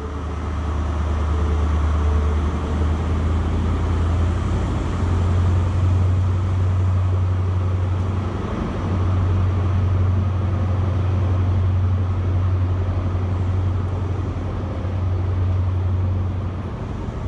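Diesel engine of a Class 43 HST power car running with a steady low drone, echoing under the station's train shed roof.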